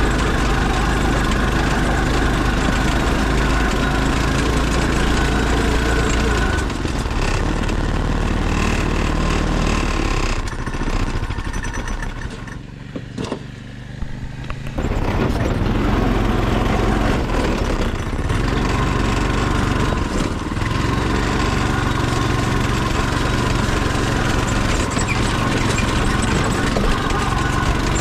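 Off-road go-kart engine running as the kart is driven, then dropping away to a brief quiet spell around the middle. An engine runs again at full level from a little past halfway to the end.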